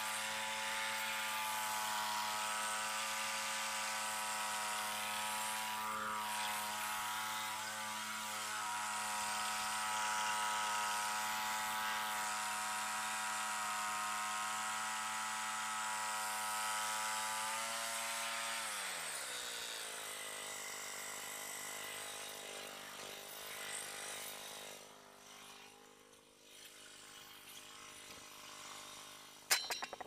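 Small gasoline engine of a Frontier OS27 portable bandsaw mill running steadily while it warms up. About two-thirds of the way in, its pitch glides down as it slows to a lower speed, and it runs on more quietly.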